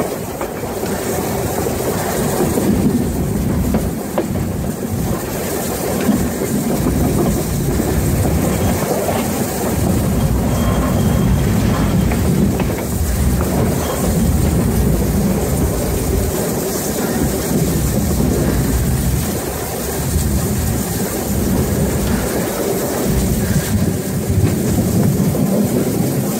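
Metre-gauge steam tank locomotive 99 7245 running along the track, heard close up from the front of the engine: a steady low rumble of wheels and running gear on the rails.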